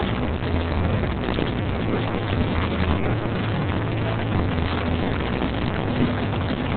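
Loud line-dance music played over speakers in a gym hall, muddy and overloaded on the camera's microphone, with deep bass notes changing pitch under a dense wash of sound.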